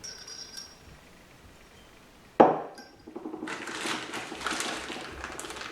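Metal transmission parts being handled on a work surface: a light ringing clink at the start, a sharp knock about two and a half seconds in, then continuous rustling and scraping as parts are moved about.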